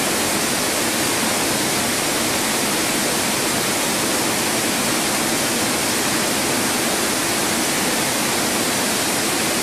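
Water pouring over a wide river weir into a foaming pool: a loud, steady rush that cuts off suddenly at the end.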